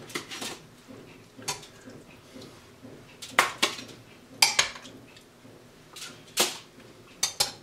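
Metal kitchen tongs clinking against the slow cooker's crock and the foil-lined sheet pan as braised short ribs are lifted out and set down: about ten sharp, irregular clinks.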